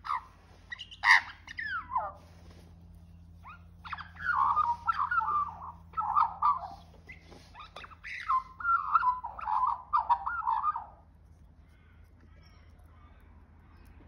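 Australian magpie singing for food: a few sliding calls, then a long run of fluting, warbling song that stops about three-quarters of the way through.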